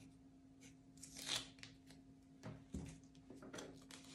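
Faint rustling and crinkling of vinyl stencil sheets and backing paper being handled and peeled, with a soft knock about three seconds in and a few small clicks.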